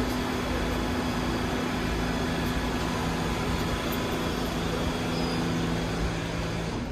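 Steady hum of a subway train standing in the station, its air conditioning and other on-board equipment running, with two steady low tones. One tone drops out near the end.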